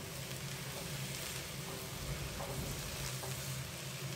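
Vegetables sizzling steadily in a nonstick frying pan on high heat as they are stirred with a silicone spatula, with a few soft scrapes and taps of the spatula against the pan. A steady low hum runs underneath.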